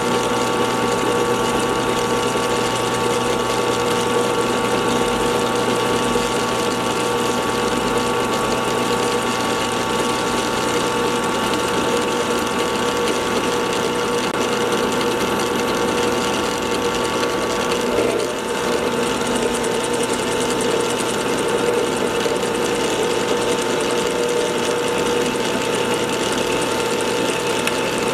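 Drill press running steadily, cutting a keyway into a pulley; a constant machine hum with a faint chatter, dipping briefly about 18 seconds in.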